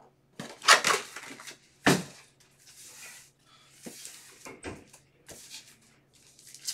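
Foil trading-card packs crinkling and rustling as they are shuffled and squared into stacks on a table, with a few sharper knocks as stacks are set down, the loudest a little under a second in and at about two seconds.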